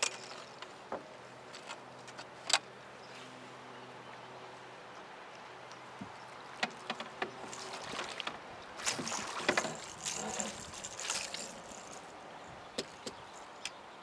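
Handling noise in a small fishing boat as a landed catfish is dealt with: scattered knocks and clicks, and a flurry of water splashing and scuffling from about eight to eleven seconds in.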